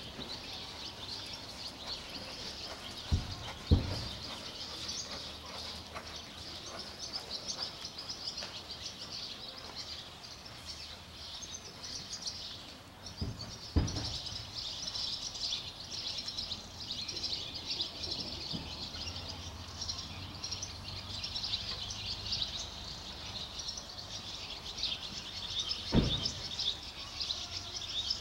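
Many small birds chirping and twittering steadily in a dense chorus. A few dull low thumps stand out: two about three and four seconds in, one near the middle and one near the end.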